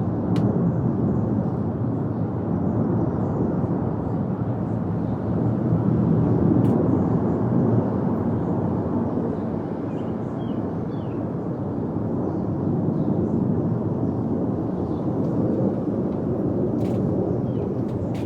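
A loud, steady low rumble that seems to come from overhead. It swells slowly, easing around the middle and building again, with no sign of a beat or pitch.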